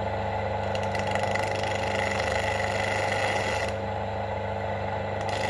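Electric bench grinder running with its motor humming steadily while a steel steering cardan-joint shaft is pressed against the grinding wheel, giving a continuous grinding hiss. The hiss thins out a little past halfway as the pressure on the wheel changes.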